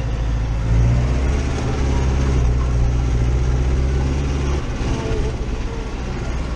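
Massey Ferguson 5440 tractor's diesel engine running steadily while under way, heard from inside the cab; its deep low note drops away about four and a half seconds in.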